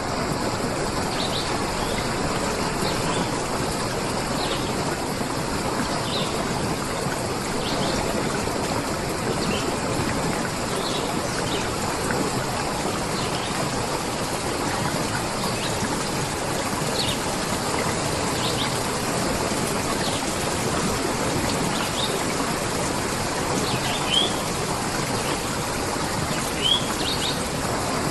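Steady rush of water, with small birds chirping over it: short high calls every second or two, two louder ones near the end.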